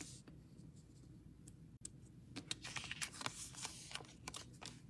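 Faint paper rustles and small clicks of hands peeling foam adhesive dimensionals off their backing sheet and pressing die-cut cardstock pieces down on a card.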